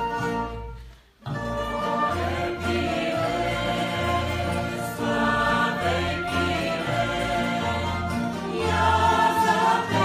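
Bulgarian folk vocal ensemble singing together over plucked tambura accompaniment. The singing comes in about a second in, after a brief break in the instrumental introduction.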